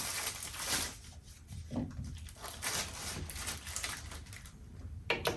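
Faint handling noises of small whiteboard accessories: light rubbing and rustling with a few soft knocks, and a sharp click near the end.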